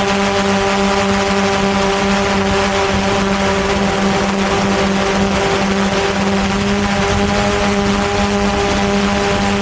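Quadcopter drone's motors and propellers in flight, a steady hum at one unchanging pitch over a hiss.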